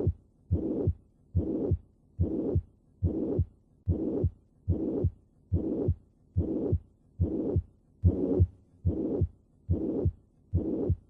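Heart sounds with a systolic murmur of mitral regurgitation on every beat, about 75 beats a minute, each beat a short sound lasting about half a second.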